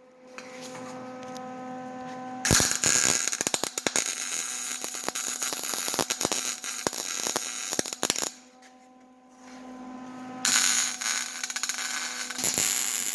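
Electric arc welding on a steel tailgate hinge: a steady welder hum, then loud crackling of the arc for about six seconds. The hum comes back briefly, and the crackling arc starts again near the end.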